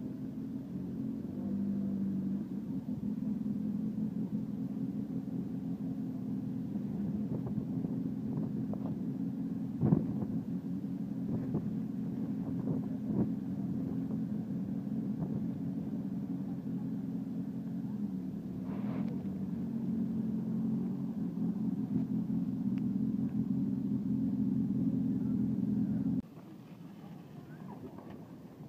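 A steady, low engine hum with a sharp knock about ten seconds in and a lighter one later; the hum stops abruptly near the end.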